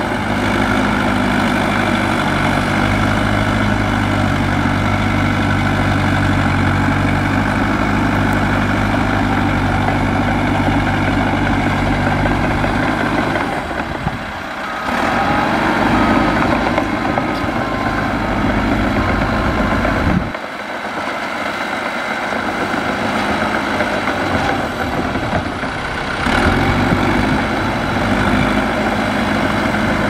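Caterpillar D3K2 crawler dozer's diesel engine running steadily as it pushes dirt. The deep engine note drops away abruptly about halfway through and again about two-thirds through, then returns.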